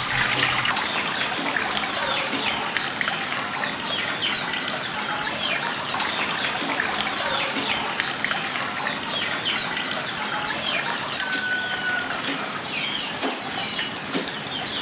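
Birds chirping, many short quick calls, over a steady hiss of trickling water.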